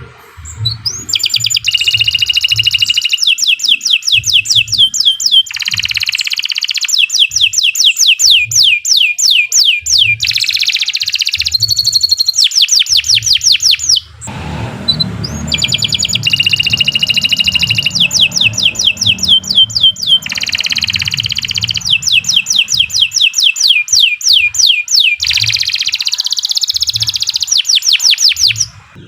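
Domestic canary singing a long, loud, unbroken song of rapid rolling trills and chirps, with one short pause about halfway through.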